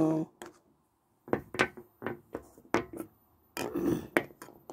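Plastic toy figures being moved and knocked about on a tabletop, making a series of short light clicks and knocks, in a cluster about a second in and again near the end.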